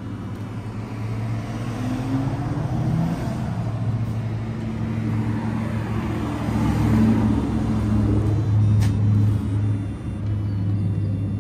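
Bus engine running with a low steady drone, growing louder over the first couple of seconds and loudest around seven to nine seconds in.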